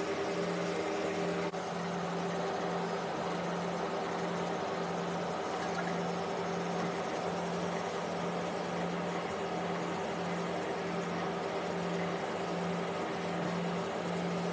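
A steady machine hum, with a low tone that throbs evenly a little faster than once a second over a constant higher tone.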